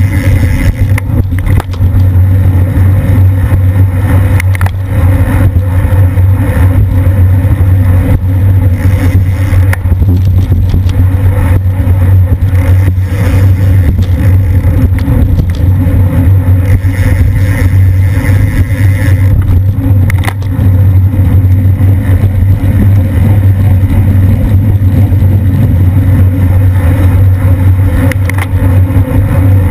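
Wind rushing over the microphone of a bicycle-mounted camera at about 20–25 mph: a loud, steady low rumble, with a few sharp clicks from the bike over the road.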